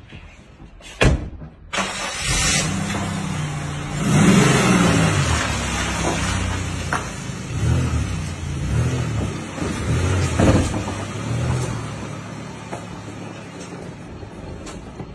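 A restored antique car's engine starting after a click, then revved several times and settling into steadier, quieter running.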